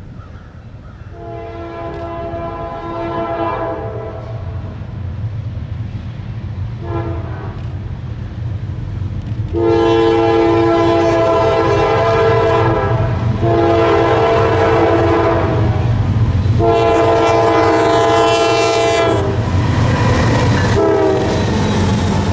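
Norfolk Southern freight train's diesel locomotive approaching and passing, sounding its air horn: a long blast, a short one, then three long blasts in close succession and a short one near the end. Under the horn a deep engine rumble grows louder as the train nears.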